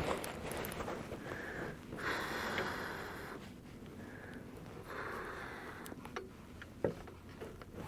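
A person breathing and sniffing in short, repeated breaths close to the microphone, with a few light clicks toward the end.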